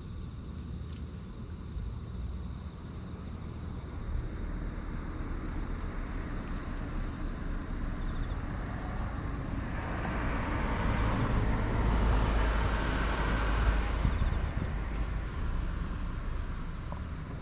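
A vehicle passes: its noise swells over several seconds to a peak about two thirds of the way in, then fades. A faint insect chirp repeats at an even pace, about one and a half times a second, throughout.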